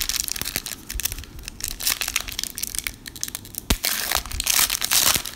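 Foil wrapper of a 2017 Score football trading-card pack crinkling in the hands and being torn open. The loudest rip comes near the end.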